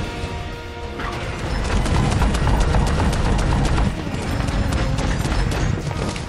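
Galloping hooves of a large mounted charge, a fast, dense run of hoofbeats, over dramatic film score music.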